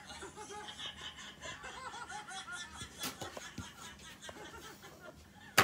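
People laughing, in short rising-and-falling bursts, with a light click about three seconds in and a sharp, loud click at the very end.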